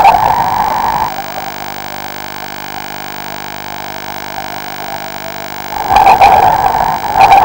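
Diver's breathing underwater: a rush of exhaled air and bubbles at the start and again for the last second and a half. In between is a steady electrical hum.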